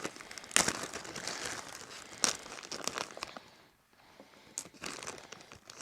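Plastic Lego parts bags crinkling as they are handled, with a few sharp clicks of small plastic pieces; the rustling pauses briefly past the middle.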